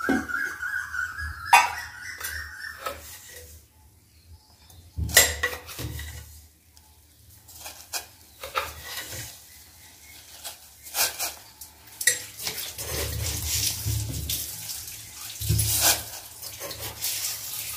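Spoon and tea containers clinking against a steel saucepan as sugar and tea leaves go into water heating for chai, several separate clinks. A brief high tone rises in the first few seconds, and toward the end the water begins to bubble with a steady low hiss.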